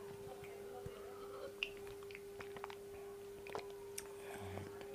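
A person sipping and swallowing a whey protein shake from a plastic shaker bottle, then tasting it with small, quiet mouth and lip clicks. A faint steady hum runs underneath.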